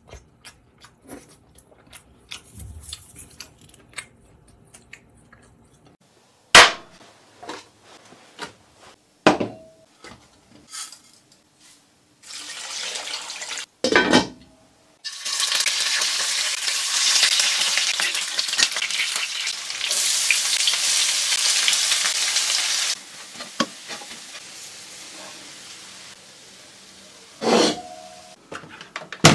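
Kitchen cooking sounds: scattered clinks and knocks of pots and utensils, a sharp knock as a glass lid goes onto a pot, then a loud steady hiss lasting about eight seconds from water or frying food.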